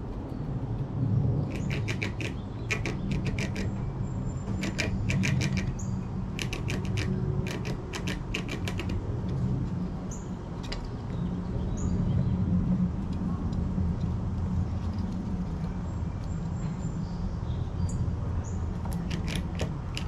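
Gray squirrel gnawing dried corn kernels off the cob, in quick runs of sharp crunching clicks that come in bursts and pause. A few short high bird chirps and a steady low hum sit underneath.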